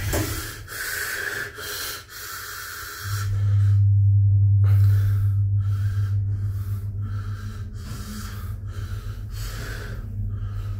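Stannah passenger lift travelling up: after a few seconds of rubbing and rustling, a steady low motor hum starts about three seconds in, loudest at first and slowly easing off.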